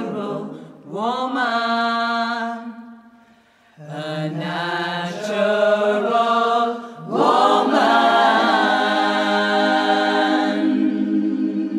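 Women's a cappella vocal group singing in close harmony, gliding up into held chords, with a brief break about three seconds in. Near the end they hold a long final chord that begins to fade.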